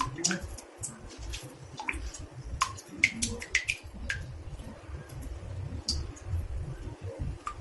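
Water drops falling into a bathtub: irregular plinks and plops, about two or three a second, some with a short pitch glide, over a low uneven rumble.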